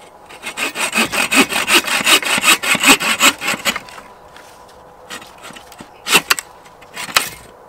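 Agawa Boreal21 folding bow saw cutting through a dead fallen branch: about three seconds of fast, even back-and-forth strokes, then a pause with light scraping and two separate sharp strokes near the end as the cut goes through.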